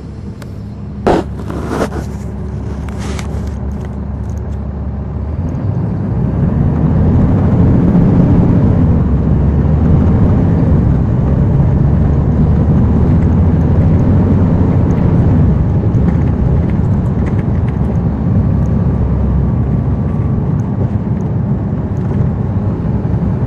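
Caterpillar C13 ACERT diesel engine of a NABI 40-SFW transit bus, heard from the rear seat: it runs low at first, then grows clearly louder from about five seconds in as the bus pulls away under load, and holds a steady heavy drone. A few sharp clicks come in the first three seconds.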